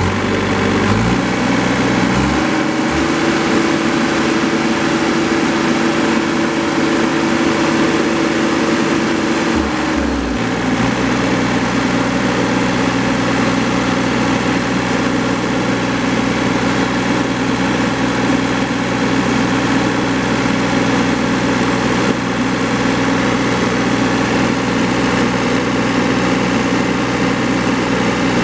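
Yanmar 3TNV84 three-cylinder diesel engine of a John Deere 3225C mower running. It speeds up about a second in, holds a higher steady speed, then drops back to a steady idle about ten seconds in.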